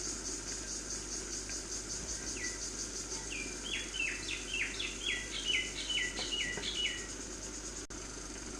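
A bird singing a quick run of about a dozen descending chirps, over an insect's fast, steady pulsing trill that fades about halfway through.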